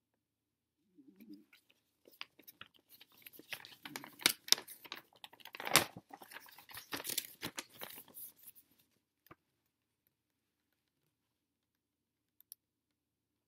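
Glossy paper catalog pages being handled and turned: a crackling rustle that starts about two seconds in and stops about nine seconds in, followed by a single sharp tick.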